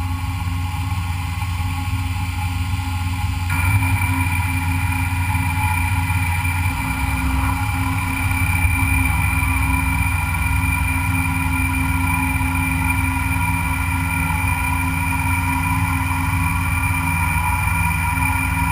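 A machine tool running steadily while machining a metal part, with a strong low motor hum and several steady higher tones. About three and a half seconds in, more high tones come in and the sound gets slightly louder, then holds steady.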